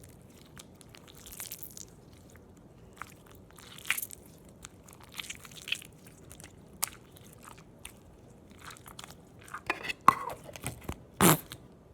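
Stretchy slime being pulled and stretched by hand, giving off scattered sticky crackles and pops, loudest near the end.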